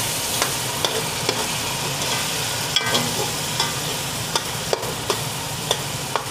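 Spiced onion-tomato masala sizzling in oil in an aluminium pot as it is fried down (bhuna) and stirred with a spoon, with short clicks of the spoon against the pot every second or so.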